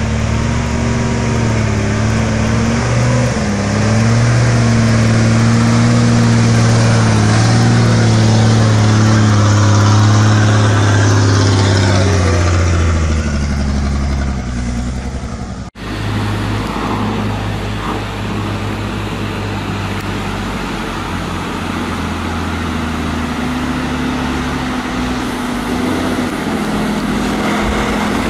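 Heavy truck diesel engine labouring under a load of logs, its pitch stepping up and down. It cuts off suddenly about halfway through, and another truck's engine runs on at a steadier pitch.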